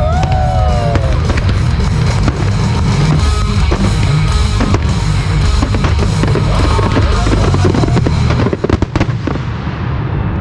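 Fireworks display firing a dense, rapid barrage of shell bursts with a heavy low rumble, over a music soundtrack. A few last sharp bangs come near the end as the barrage dies down.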